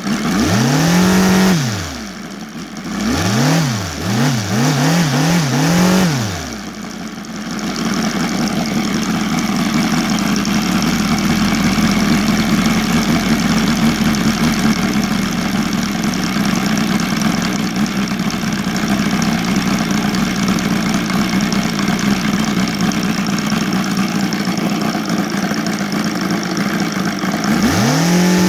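OS Sirius 7 FR7-420 seven-cylinder four-stroke radial engine, running on gasoline with CDI ignition and turning a large propeller. It revs up once and back down, then gives several quick throttle blips, and from about seven seconds in holds a steady high-rev run.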